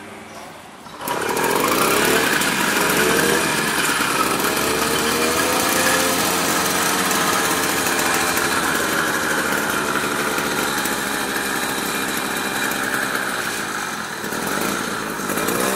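Motorized bicycle's small single-cylinder two-stroke kit engine, pedal-started, catches about a second in and runs loud, revved up and down several times, dipping briefly near the end.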